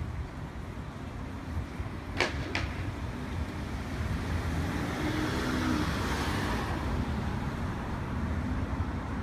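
Street traffic in a city: a steady low rumble with a vehicle passing, loudest about five to six seconds in, and two sharp clicks close together about two seconds in.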